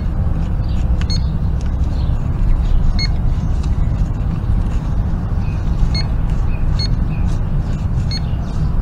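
Handheld metal-detecting pinpointer giving short, high beeps at irregular moments, about six times, as it is probed through loosened soil to locate a buried target. Under it runs a steady low rumble.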